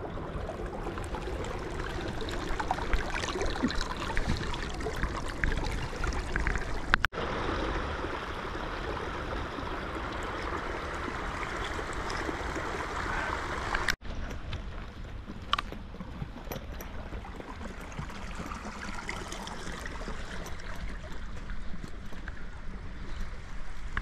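Small mountain stream rushing and trickling along a narrow grassy channel over stones. The flow sound changes abruptly twice, about 7 and 14 seconds in.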